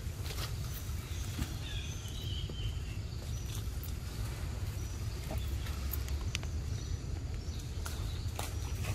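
Light crackles and rustles of dry leaf litter and twigs being stepped on, over a steady low rumble, with a few faint high chirps about two seconds in.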